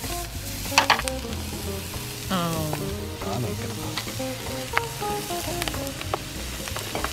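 Chopped onions and clams sizzling in a frying pan as cooked rice is added, with a few sharp clicks, the loudest about a second in. Background music plays underneath.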